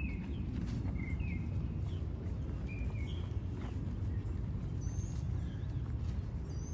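A steady low rumble of outdoor noise, with a few short, high bird chirps scattered through it, several in the first half and two higher ones near the end.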